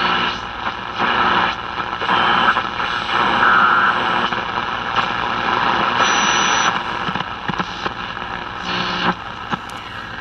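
Zenith G500 Trans-Oceanic shortwave tube radio's speaker hissing with band static that shifts in tone as the dial is tuned, with a few clicks and a brief high whistle about six seconds in. The set has no antenna attached, so it picks up mostly static.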